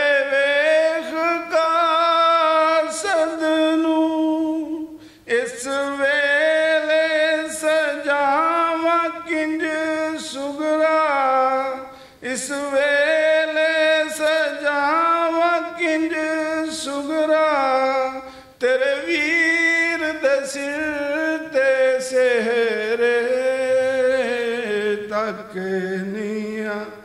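A man's unaccompanied voice chanting a Punjabi marsiya elegy at the microphone, drawing out long, wavering, ornamented notes. He breaks off for breath three times.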